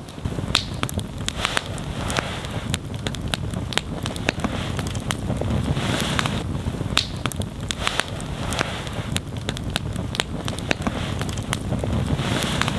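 Wood fire crackling, with many sharp irregular pops over a low steady rumble.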